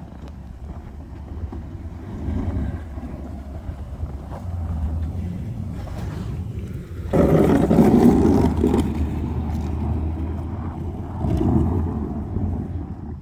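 Toyota Tundra pickup running steadily while plowing snow, with a louder rushing, scraping surge about seven seconds in that lasts a couple of seconds, and a smaller one near the end.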